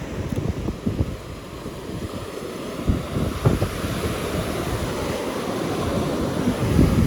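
Wind buffeting the microphone in uneven gusts, over the steady wash of surf on a beach.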